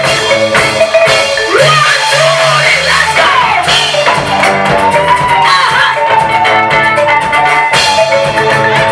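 Music: a Swahili gospel song with drums, guitar and singing, and a long held note from about halfway through.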